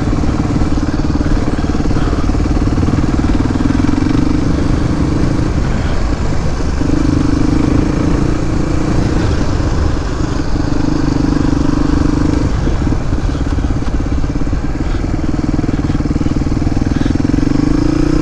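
Suzuki DR250S single-cylinder four-stroke trail bike running on the move through a Dominator R aftermarket exhaust. The exhaust note swells and eases off several times, and it rises as the bike revs up near the end.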